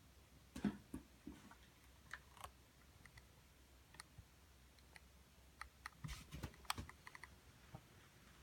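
Faint, irregular clicks and taps, scattered at first and bunching into a quick run about six seconds in: an unexplained noise that the recorder wonders may be a frog.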